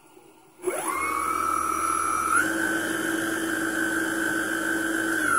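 Turnigy Aerodrive SK3 brushless outrunner motor spinning the longboard's rear wheel through a belt drive with the wheel off the ground, set to full speed with no throttle reduction. A whine rises quickly about half a second in, steps up to a higher pitch a little before halfway as the throttle is pushed further, and holds steady.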